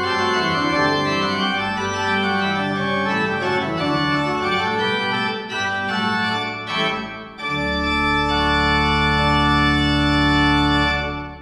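Church organ playing a piece with moving parts, which closes about seven and a half seconds in on a long full final chord with deep pedal bass, held for several seconds and released near the end.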